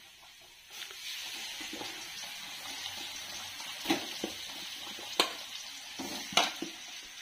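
Chilli-and-turmeric-marinated fish pieces frying in hot oil with sliced onion in a steel kadai: a steady sizzle sets in about a second in as the pieces go into the oil, with three sharp clicks as more pieces are laid in.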